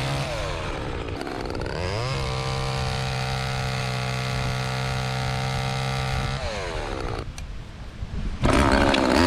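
Late-1970s Homelite Super 2 two-stroke chainsaw revving at full throttle while cutting branches. The revs dip briefly near the start, and fall back to a low idle after about six seconds. A short, loud burst of throttle comes near the end.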